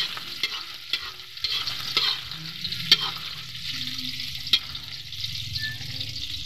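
Garlic, onion and adobo pork frying in hot oil in a wok, sizzling steadily, while a spatula scrapes and knocks against the pan. The knocks come about every half second in the first three seconds, with one last sharp knock about four and a half seconds in.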